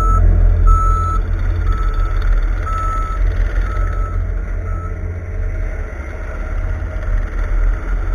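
Backup alarm of a reversing Cat wheeled skid steer beeping about once a second, stopping about five seconds in, over the steady running of its diesel engine.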